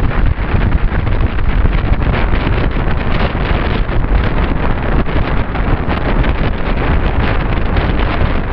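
Heavy wind buffeting the microphone on a moving train, with the train's running rumble underneath.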